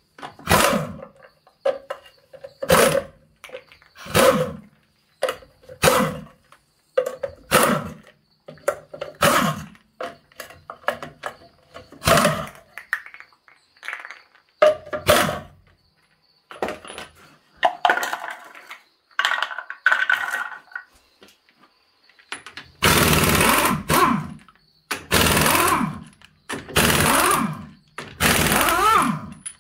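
Impact wrench hammering on wheel nuts in short bursts every second or two, then four longer, louder bursts near the end as it works at the hub.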